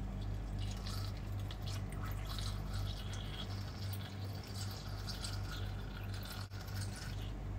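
Milk being poured into a mixer-grinder jar of chopped mango, a steady irregular splashing trickle. A low, steady hum runs underneath.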